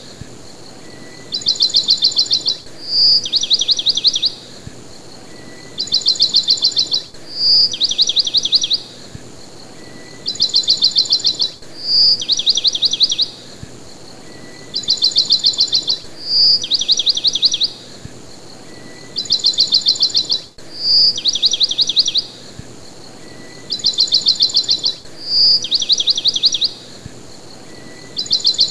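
Looped birdsong background track: a single bright chirp followed at once by a fast trill, then a second trill a moment later. The same phrase repeats exactly about every four and a half seconds.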